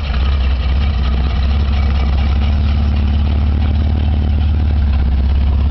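1984 Chevrolet Caprice's engine running steadily at low speed, a deep, even exhaust sound as the car creeps along a dirt track.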